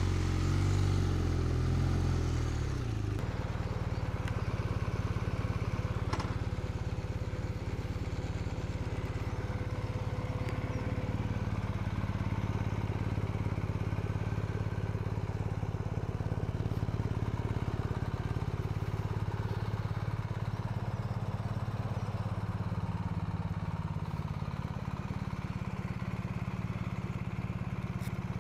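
BMW R1250R's boxer-twin engine dropping from riding speed over the first few seconds as the bike comes to a stop, then idling steadily.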